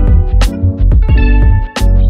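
Background music: guitar over a heavy bass line with a steady drum beat.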